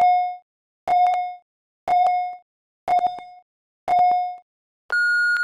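Workout interval timer counting down with a short electronic beep once a second, five in all, then about five seconds in a longer, higher-pitched beep that signals the start of the lift.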